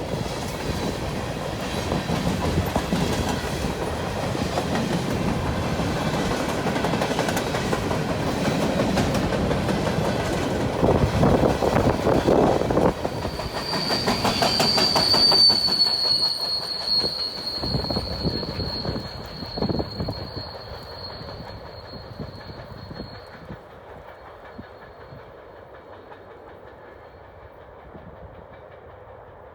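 Norfolk Southern local freight train's cars rolling past with clickety-clack over the rail joints, loudest about halfway through. A high steady wheel squeal sets in there and holds for about ten seconds, while the train's sound dies away.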